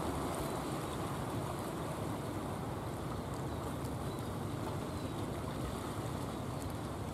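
Steady wash of sea waves and surf, an even rushing noise with no clear engine note.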